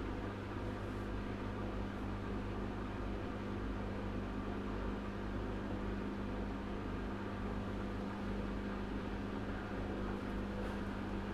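Front-loading washing machine running with a steady mechanical hum, holding one constant pitch.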